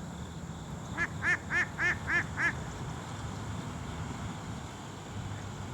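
A goose honking six times in quick succession, each honk rising and falling in pitch, about a second in.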